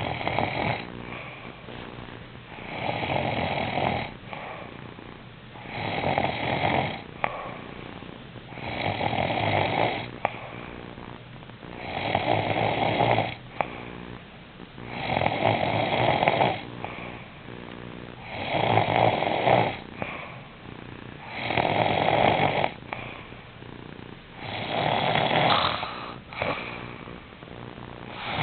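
A man snoring in his sleep, loud rasping snores about every three seconds, with a quieter pitched breath between them.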